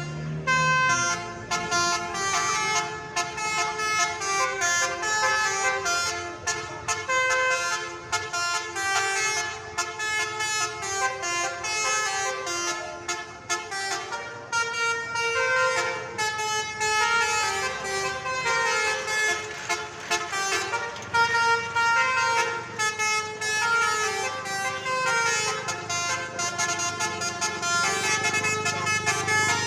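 Basuri telolet multi-tone bus horn playing a melody: a continuous run of horn notes stepping up and down in pitch about every half second.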